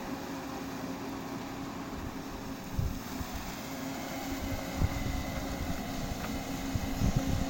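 JCB backhoe loader's diesel engine running steadily as it works, with a few low thumps about three seconds in, near five seconds and toward the end.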